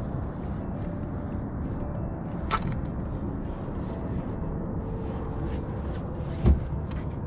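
Outboard motor running steadily at low speed, a low rumble under the boat. A sharp click comes about two and a half seconds in, and a heavier thump near the end.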